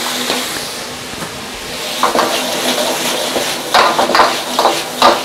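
Chicken and red pepper sizzling in a wok, with a metal ladle knocking and scraping against the wok in a string of quick strokes from about two seconds in as the stir-fry is worked.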